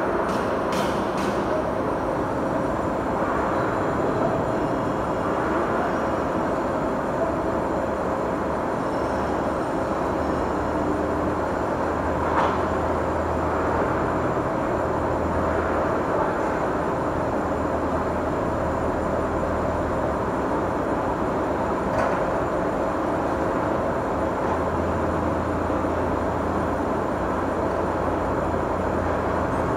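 Steady machine-shop din from lathes and other machine tools running, with a constant hum and a low drone that comes and goes. A few sharp metallic clicks stand out, twice about a second in, then once near the middle and once later on.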